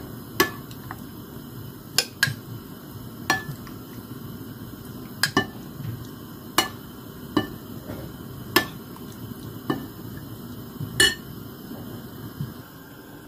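Metal spoon clinking against a ceramic bowl and a glass jar while garlic pickle in oil is spooned across: about a dozen sharp clinks at irregular intervals, some ringing briefly.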